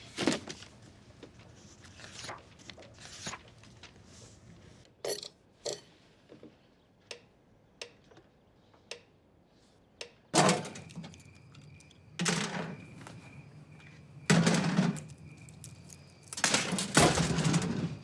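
A string of separate short sound effects: sharp clicks and knocks, then several louder thuds and longer scraping noises each lasting about a second, with a faint steady high tone under the second half.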